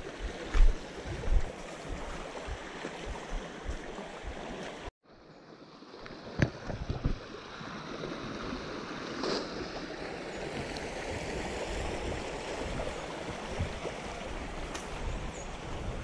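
Creek water running steadily, with low thumps in the first few seconds. The sound drops out briefly about five seconds in, then the water noise carries on.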